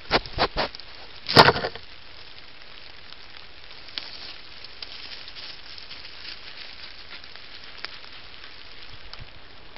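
Dry leaves and twigs crackling and rustling under a badger moving close to the trail camera. A few sharp crunches come in the first second, a louder crackle just after, and then only faint scattered rustles over a steady hiss.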